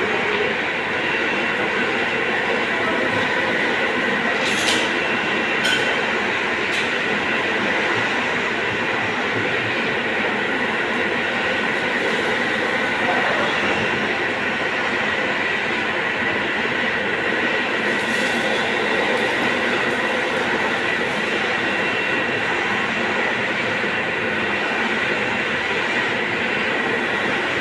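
Industrial vacuum cleaner's double-stage turbine blower running steadily: an even rush of air with a steady high whine on top. A few sharp clicks come about five to seven seconds in and again around eighteen seconds.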